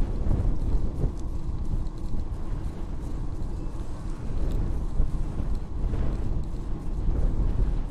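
Wind buffeting the microphone of a bicycle-mounted camera while riding at about 26 km/h, a steady, uneven low rumble mixed with the tyres rolling on the asphalt cycle path.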